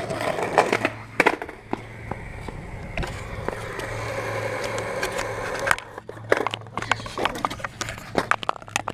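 Skateboard on concrete: sharp clacks of the board for the first second or so, then the steady roll of its wheels for a few seconds, then more scattered clacks and knocks near the end.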